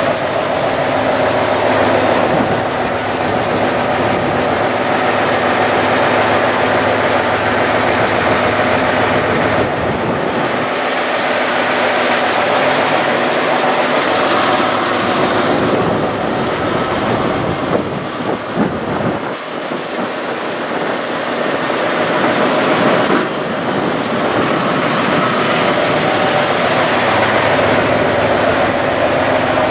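Heavy diesel semi-truck engine idling close by: a loud, steady running noise with a low hum.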